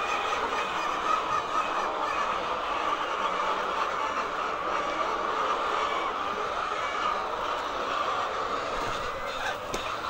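A large flock of hens clucking and calling all at once, a steady dense din with no single bird standing out.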